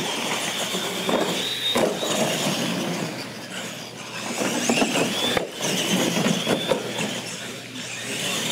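Electric R/C monster trucks racing across a concrete floor: motors whining with a high pitch that rises and falls as they speed up and ease off, tyres scrubbing, and a few sharp knocks along the way.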